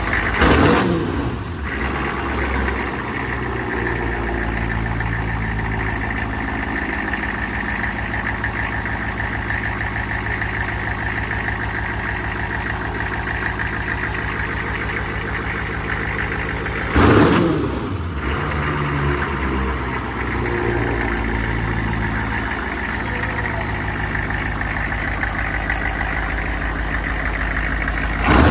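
6.5-litre twin-turbo engine of a rat rod truck idling on its first start-up. The throttle is blipped about half a second in and again about 17 seconds in, and each time the pitch falls back to a steady idle.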